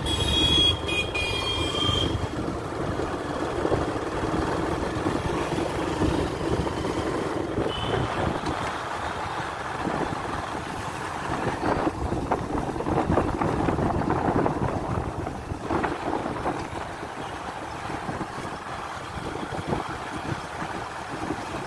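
Steady road and traffic noise heard from a moving vehicle on a town street, with wind buffeting the microphone. A few high beeping tones sound in the first couple of seconds.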